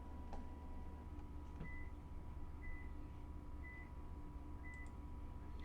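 Short electronic beeps, about one a second, over a steady low electrical hum, with a couple of faint clicks.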